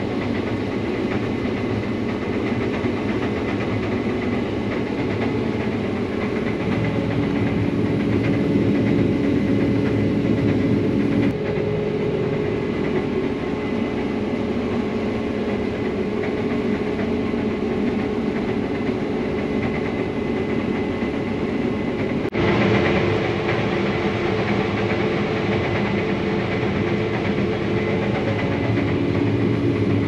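Combine harvester running steadily while cutting wheat: a dense mechanical drone with a faint steady whine above it. The mix of tones changes abruptly twice, about 11 and 22 seconds in.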